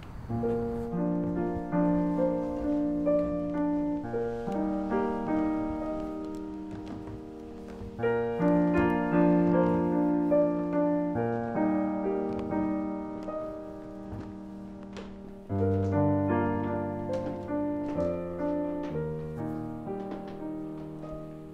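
Slow piano music of held, gently changing chords. It swells anew about eight and fifteen seconds in and fades between the swells.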